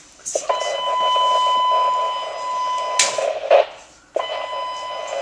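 Fire department dispatch alert tone over the station radio speaker: a steady high tone with radio hiss underneath. It breaks off with a click about three seconds in and comes back about a second later.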